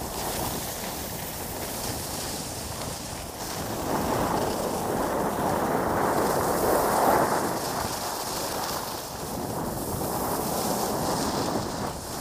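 Wind rushing over the microphone of a camera carried by a downhill skier, mixed with the hiss of skis sliding on packed snow. It swells louder about four seconds in and eases off again near eight seconds.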